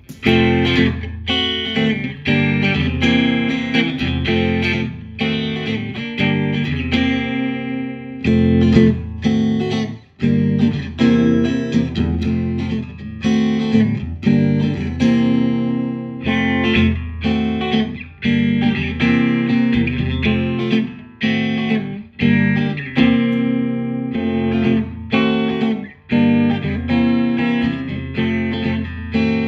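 Fender Stratocaster electric guitar on its middle pickup position, playing riffs of picked notes and chords, with short breaks about ten seconds in and again past twenty seconds.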